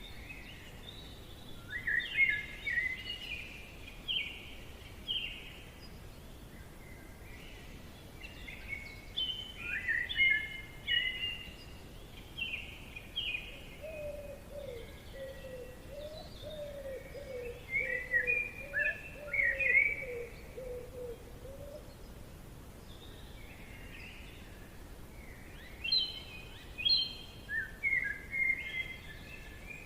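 Songbirds singing in a forest: bursts of quick chirping phrases come and go, and through the middle a second, lower-pitched bird call of rapidly repeated notes joins them, over a faint steady background hiss.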